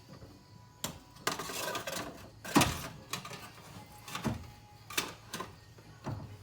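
A cooling fan assembly knocking and scraping against the radiator as it is worked down into its mounting slot: a scrape in the first two seconds, then a series of separate knocks, the loudest about two and a half seconds in.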